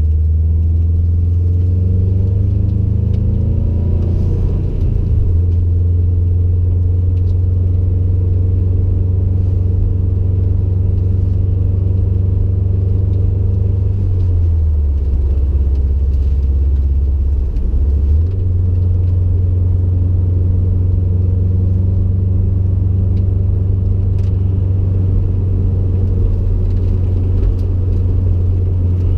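Subaru WRX STI's turbocharged 2.5-litre flat-four through a stage 3 turbo-back exhaust, heard from inside the cabin while driving: a loud, low, steady exhaust rumble. It rises in pitch over the first few seconds as the car accelerates, then holds steady at cruise. A little past the middle the pitch drops for a few seconds, then jumps back up sharply.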